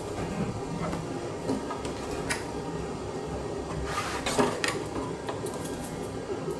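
A few light clicks and knocks over a steady low hum, with a small cluster of them a little past the middle.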